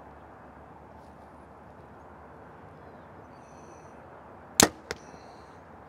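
Compound bow shot: one loud, sharp snap of the string and limbs as the arrow is released, about four and a half seconds in. A fainter knock follows about a third of a second later. Before the shot there is only a quiet, steady outdoor background while the bow is held at full draw.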